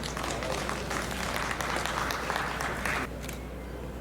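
Spectators clapping in applause, which dies away about three seconds in.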